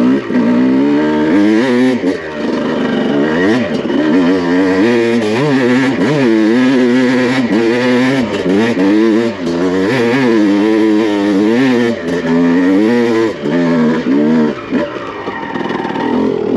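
2001 Honda CR250's single-cylinder two-stroke engine revving hard under load on a steep dirt hill climb, its pitch rising and falling over and over as the throttle is rolled on and off.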